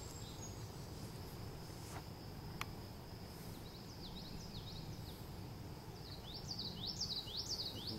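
A songbird sings short phrases of quick, sweeping high notes, once around the middle and again near the end, over a steady high insect drone and open-air background noise.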